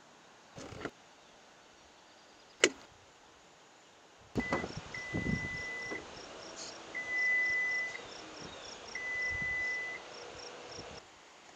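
A sharp click, then a steady electronic beep sounds three times, each about a second long and a second apart, over a quick, regular ticking.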